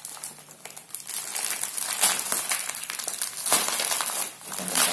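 Thin plastic mailer bag crinkling and rustling as it is handled and pulled open. The crackling comes in fits and starts, faint in the first second and loudest about two seconds in and again past three seconds.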